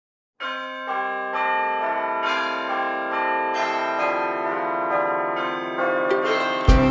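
Bells ringing, a new stroke about every half second, the tones ringing on and overlapping. A loud music track with a beat cuts in near the end.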